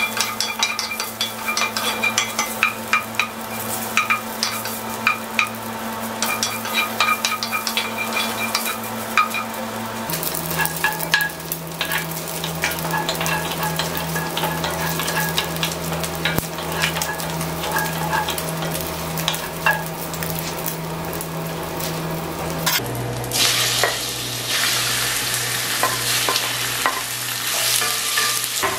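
Cubes of beef fat sizzling as they render in a cast iron pot, stirred with a wooden spatula that clicks and scrapes against the pan, over a low steady hum. In the last several seconds the sizzle turns louder and brighter as pieces of raw beef liver fry in the rendered fat.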